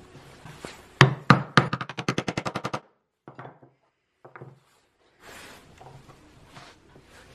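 Sharp knocks on a wooden block at the workbench: three hard ones about a second in, then a quick even rattle of knocks lasting about two seconds. Two brief light clatters follow, then soft handling noise.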